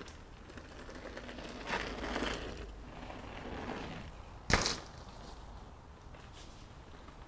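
Focus SAM mountain bike rolling over a dirt trail, tyres crunching, then landing a small jump with one sharp thud about four and a half seconds in.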